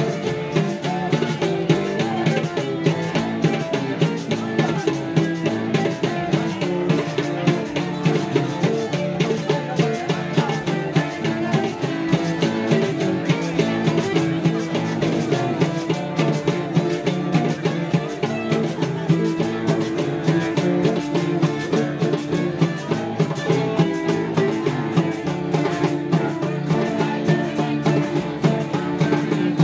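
Live band playing dance music: strummed guitars over a steady drum beat.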